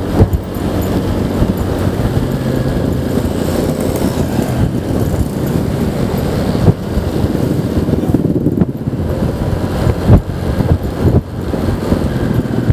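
Honda Vario 125 scooter's single-cylinder engine running at steady cruising speed, heard from a handlebar-mounted camera amid rushing road noise. A few brief, sudden thumps stand out above it, the loudest about ten seconds in.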